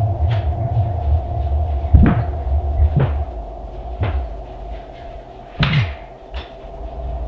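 Front door of a room being opened and shut. There are sharp clicks and knocks about once a second from two seconds in, then a louder swish and thud near the end as the door closes. A low, steady rumbling drone runs underneath throughout.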